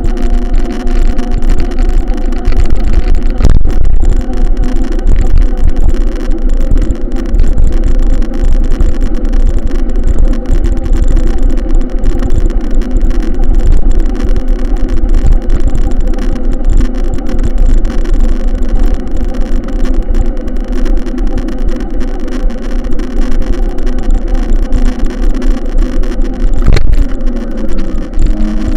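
A loud engine running at a steady speed throughout, over a heavy low rumble, with a single click about 27 seconds in.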